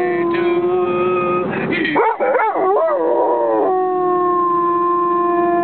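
Dog howling in long held notes, with a wavering up-and-down stretch in the middle before settling into one steady held note.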